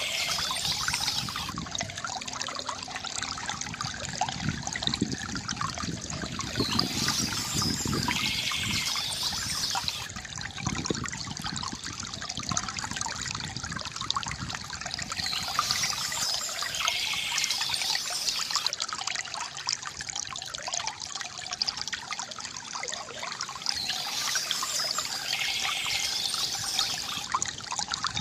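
Stream water trickling and splashing steadily, with a high bird call returning about every eight to nine seconds.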